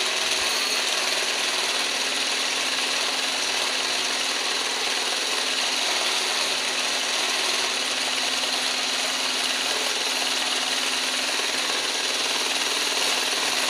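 Electric hand blender with a whisk attachment running at a constant speed in a bowl of egg as oil is drizzled in to emulsify it into mayonnaise. It gives an even motor whine with a low steady hum.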